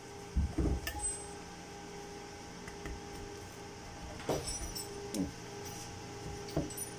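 Plastic casing of a video laryngoscope handled and worked apart by hand: a cluster of small clicks and knocks about half a second in, then single clicks a little after four seconds, around five seconds and near the end, over a steady electrical hum.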